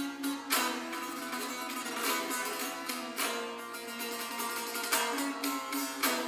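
Persian tanbour, a long-necked lute, played solo: a stream of strummed and plucked notes, with about five sharp, accented strokes standing out.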